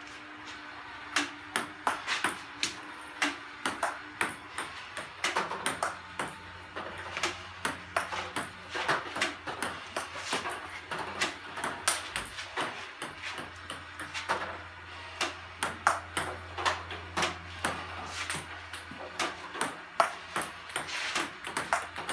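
Table tennis forehand loop drill: a quick, even rhythm of sharp clicks, two or three a second, as the ball bounces on the table and is struck by the Juic Leggy 2.0 blade. A faint low hum runs underneath.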